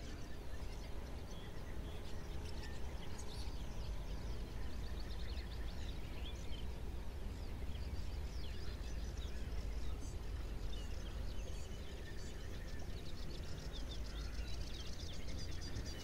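Many songbirds singing and calling at once: a dense chorus of short chirps and whistles over a steady low rumble.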